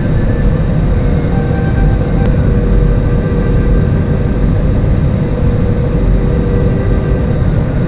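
Airliner cabin noise: a steady, loud engine drone and deep rumble, with a few faint whining tones over it.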